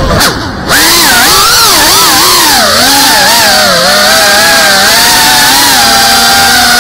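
GEPRC cinewhoop FPV drone's motors and propellers whining, the pitch swooping up and down with the throttle. The sound dips briefly just after the start as the drone rolls upside down, then comes back loud and settles into a steadier whine.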